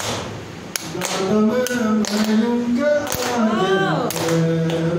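A man singing an unaccompanied song through a handheld microphone, holding long wavering notes, with sharp hand claps keeping a steady beat about every half second or so.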